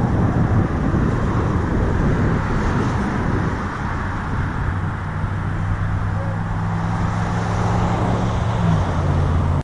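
Car running, a steady rush of engine and road noise, with a low even hum coming in about halfway through.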